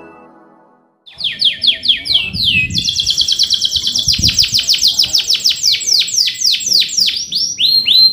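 Male domestic canary singing a rapid roll: runs of quick falling notes that speed up about two seconds in, with a few rising notes near the end. The tail of a short jingle fades out just before the song starts about a second in.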